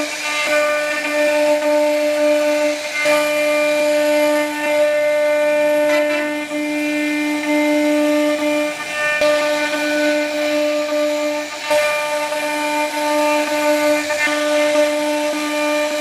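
CNC router spindle cutting a wooden door panel: a steady, high-pitched whine with the rasp of the bit chewing through the wood. It breaks off briefly a few times.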